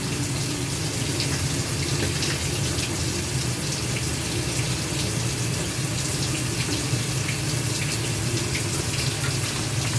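Washing machine filling with water: water running steadily into the tub, with a low steady hum underneath.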